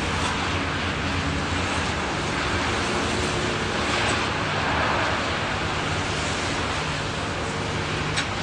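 Storm surf and wind: a steady rush of heavy waves breaking, swelling a little about halfway through, with one sharp click near the end.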